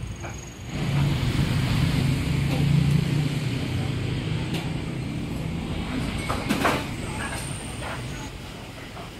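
A motor vehicle passing on the road, its low engine hum building quickly about a second in and then slowly fading away. A brief clatter about two-thirds of the way through.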